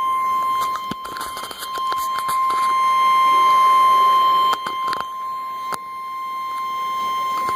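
NOAA Weather Radio's 1050 Hz warning alarm tone: one steady, loud, high beep with a few clicks of radio static on top. It is the alert that comes before a broadcast severe thunderstorm warning.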